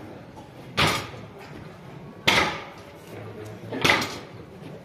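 Sharp knocks with a short metallic ring, at an even slow pace of about one every second and a half, from penitents' processional staffs striking the street pavement in time with the procession's measured step.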